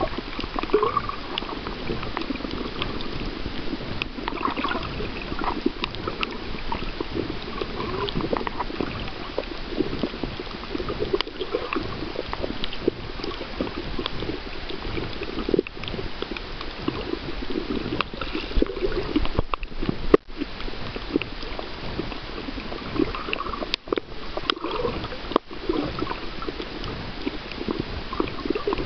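Water heard through a camera held underwater: continuous muffled gurgling and sloshing with scattered small clicks, and a few brief dropouts near the end.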